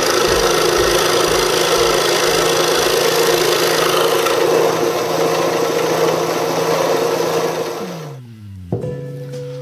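An electric power tool running on wood with a dense, loud cutting noise over a steady motor hum. About eight seconds in it is switched off and the motor winds down, its pitch falling, followed by a sharp click.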